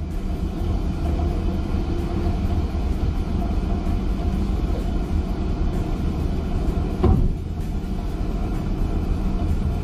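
Steady low drone of a fishing ship's engine and machinery, with one short knock about seven seconds in.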